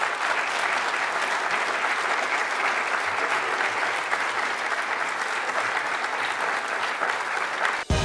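Audience applauding steadily; the applause cuts off abruptly near the end.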